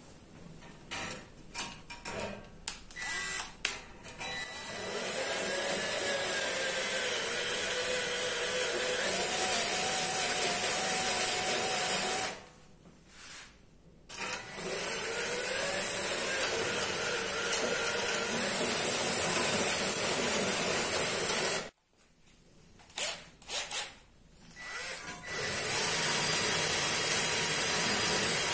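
Cordless drill spinning a mounted grinding stone inside a hole in thin 0.025 aluminum sheet, grinding it out to a larger diameter. It starts with short trigger blips, then runs in three longer stretches with brief stops between, its whine dipping and rising as the stone loads up against the metal.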